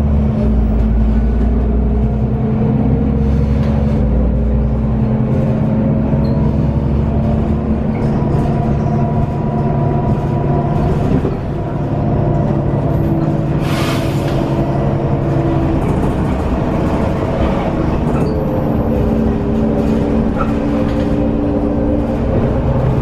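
Cabin sound of a Heuliez GX 317 city bus under way: its Iveco Cursor diesel engine and ZF automatic gearbox pulling, the pitch rising in stretches as the bus gathers speed. A short hiss of air comes about fourteen seconds in.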